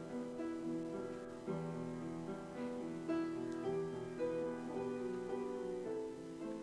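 Slow instrumental keyboard music: held notes and chords that change every half second to a second, with no singing.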